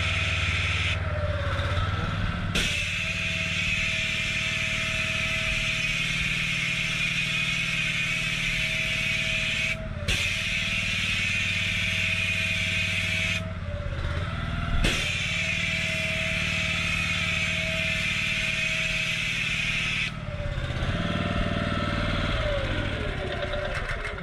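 Petrol pressure washer running steadily while its spray lance hisses onto paving slabs, laying down a cleaning chemical. The spray cuts out briefly about a second in, near ten seconds and around thirteen seconds as the trigger is let go, and dies away over the last few seconds while the engine keeps running.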